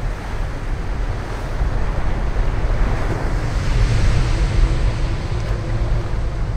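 Sea surf and wind: waves washing in over a steady low wind rumble, the surf swelling about three seconds in.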